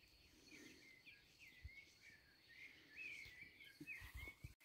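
Faint songbird chirping: short rising and falling chirp phrases repeating over near silence, with a few faint low knocks.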